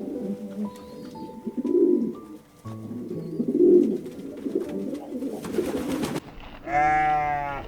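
Pigeons cooing, low repeated coos about two seconds apart, over background music. Near the end there is a short, loud, higher call with a rich ringing tone.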